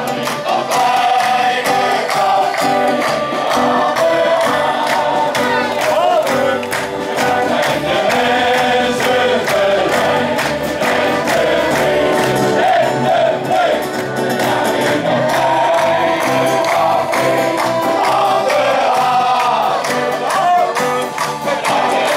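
Men's shanty choir singing a Dutch song to acoustic guitar, banjo and drums, with hand claps and drums keeping a steady beat.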